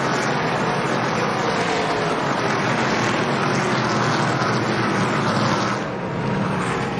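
NASCAR Truck Series race truck V8 engines running, a steady drone with no change in pitch; the sound thins and dips slightly about six seconds in.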